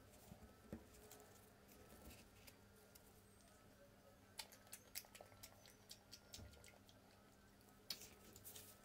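Faint, scattered soft clicks and taps of a wooden spoon and chocolate pieces against rolled ice cream and its cup, a cluster about halfway through and another near the end, over a faint steady hum.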